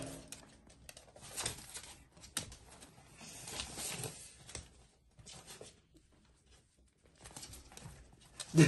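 Small dog playing with a toy on a wooden floor: scattered clicks, taps and scuffles of its claws and the toy on the boards, quieter for a few seconds past the middle, with one short, louder sound near the end.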